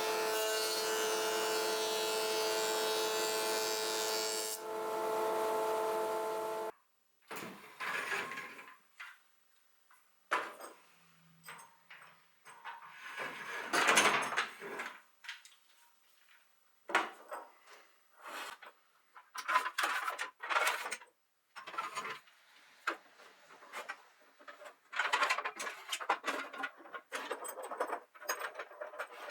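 A power tool's motor running at a steady pitch, cut off abruptly about seven seconds in. It is followed by short, irregular bursts of wood being handled, rubbed and knocked on a workbench, with quiet gaps between them.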